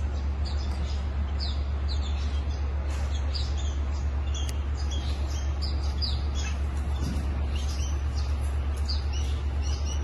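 Small caged birds chirping rapidly, many short high notes a second, over a steady low hum.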